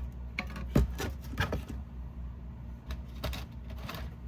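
Plastic container of crimp wire connectors being handled: scattered clicks and small rattles, a few of them about a second in and a second bunch after three seconds.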